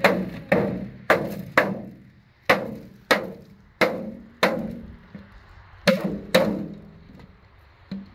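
A sheet-metal trough being struck by hand about ten times, each blow a sharp metallic knock that rings briefly. The blows come in uneven runs, with a longer pause a little past the middle.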